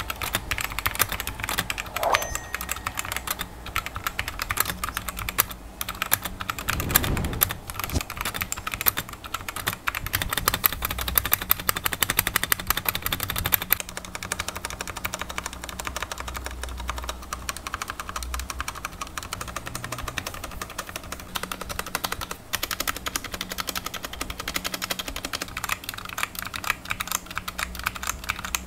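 Superframe Crepz 60% mechanical keyboard with Outemu Brown tactile switches and PBT double-shot keycaps being typed on in a keyboard sound test, a rapid, continuous clatter of key presses.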